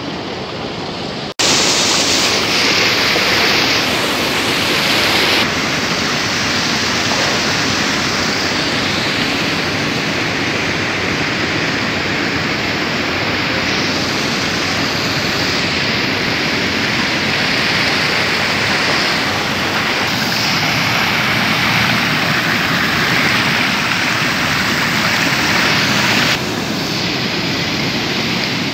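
Water rushing steadily as it spills from channels and small falls into concrete trout-farm ponds, starting after a sudden break about a second in. Near the end it drops a little in level as the sound becomes a shallow rocky stream flowing past.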